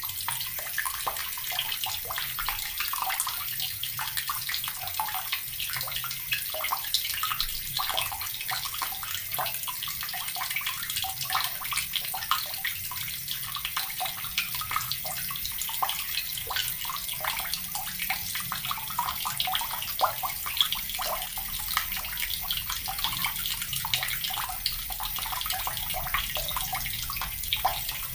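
Water from a tap pouring steadily into a plastic bucket, with a continuous splashing hiss and dense small spatters.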